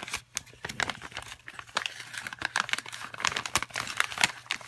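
Plastic bag crinkling as it is handled and opened: a run of irregular crackles and rustles.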